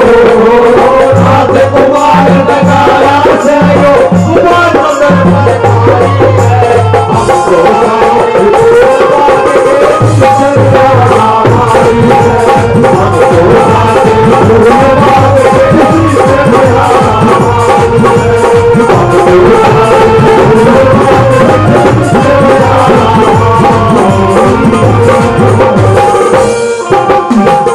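Live Haryanvi folk ragni music: a sustained, wavering melody over a steady dholak beat, with a jingling rattle in the percussion. It breaks off about a second before the end.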